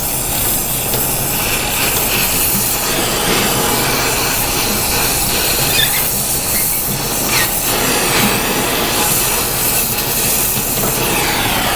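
Oxy-acetylene torch flame hissing steadily as it heats a rusted, seized bolt, with a few faint clicks about halfway through.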